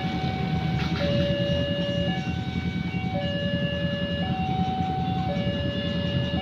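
Railway level-crossing warning alarm sounding its electronic two-tone call, switching between a higher and a lower pitch about once a second: the signal that a train is approaching. A steady low rumble runs underneath.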